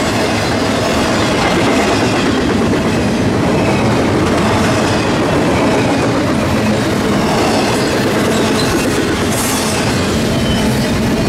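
Train cars rolling past, a loud, steady rumble and clatter of wheels on rail, with faint high wheel squeal.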